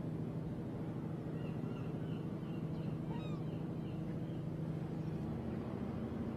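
A steady low engine hum, with a quick run of short bird calls about a second in that lasts two or three seconds.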